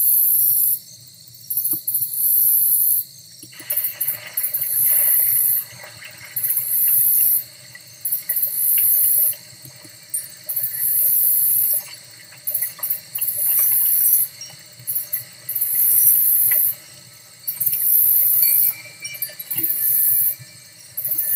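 Layered ambient sound loops from a relaxation app: crickets chirping in high pulses of about a second, each followed by a short gap, over forest sounds. A steady rush of wind is switched on a few seconds in, and sea surf joins later.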